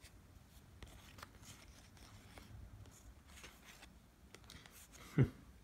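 Faint rustling and light ticks of trading cards being handled and shuffled through by hand, with one short, louder sound about five seconds in.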